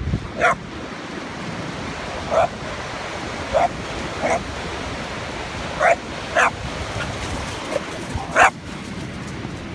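Boxer dog barking in play, about seven short, sharp barks at uneven intervals, over the steady wash of surf.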